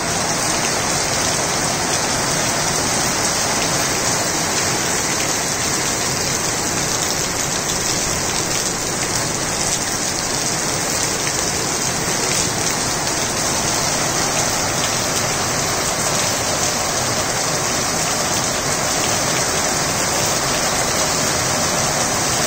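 Steady rain falling on a tiled rooftop terrace and its potted plants, an even hiss of drops.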